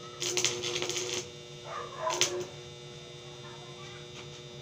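Arc welding on a steel window grille: the arc crackles and sizzles in short bursts through the first second and again briefly around two seconds in. After that only a steady electrical hum remains.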